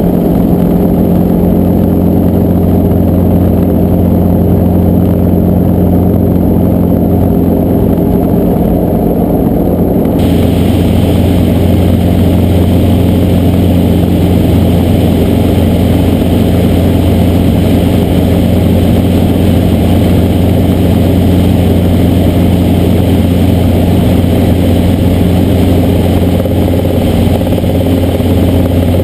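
Light helicopter's engine and main rotor running steadily, heard from inside the small bubble cabin as a loud, constant low hum. About ten seconds in the sound changes abruptly and is brighter and more hissy from then on.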